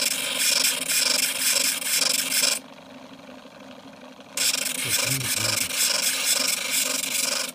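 Sturm BG6017S 70 W drill-bit sharpener running while a drill bit is held against its grinding wheel in a guide hole: a harsh grinding rasp, a break of about two seconds in the middle where only the motor's hum is left, then grinding again.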